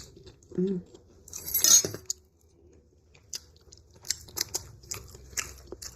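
Close-miked eating sounds: a brief clatter of plates or packaging about a second and a half in, then a run of small clicks from chewing.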